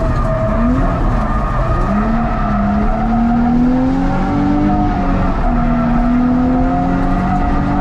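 Nissan 350Z's 3.5-litre V6 held at high revs in first gear as the car slides through a handbrake drift entry, the engine note climbing slowly, with tyres squealing. Heard from inside the cabin.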